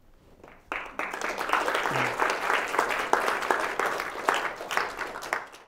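Audience applauding: dense clapping from many hands that starts about a second in and cuts off abruptly near the end.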